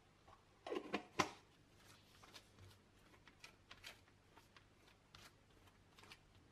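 A brief clatter of sharp knocks about a second in, then a spoon spreading peanut butter over a flour tortilla on a wooden cutting board: faint scrapes and light taps, scattered and irregular.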